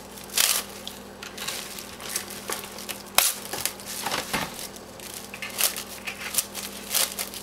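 Plastic cling film crinkling and crackling as it is stretched over a plastic bowl and pressed down around the rim: a run of irregular sharp crackles and rustles.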